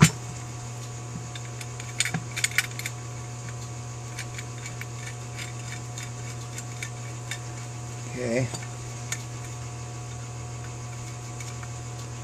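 Small metal parts clinking and tapping against the aluminum carburetor float bowl as the float hinge pin is worked into place with a thin metal pick. Sharp clicks at the start and a cluster about two seconds in, then scattered light ticks over a steady low hum.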